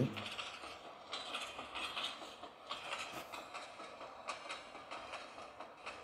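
Faint clatter of a passenger train running on the track, with irregular light clicks and rattles.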